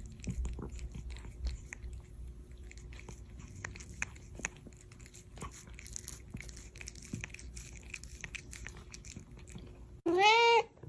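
Faint irregular clicks and crackles, then about ten seconds in a domestic cat gives one short, loud meow that rises and then falls in pitch.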